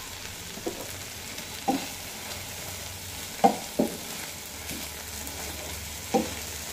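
Wooden spatula stirring thick spinach paste in a nonstick frying pan over a steady faint sizzle, with about five short scrapes and knocks of the spatula against the pan.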